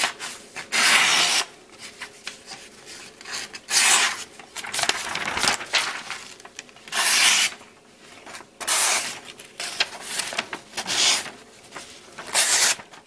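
Schrade SCH205 folding knife's plain-edge blade slicing through paper in a series of strokes, each a short rasping hiss, about every second or two. It cuts cleanly, a test of a sharp edge.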